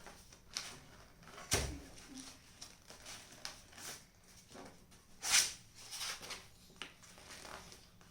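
Sheet of paper being folded and creased by hand: scattered rustles and small crinkles, with a sharp crack about a second and a half in and a louder rustle a little past five seconds.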